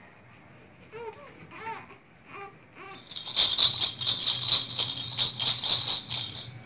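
A two-month-old baby cooing in a few short rising-and-falling sounds, then a baby rattle shaken fast and loud for about three seconds.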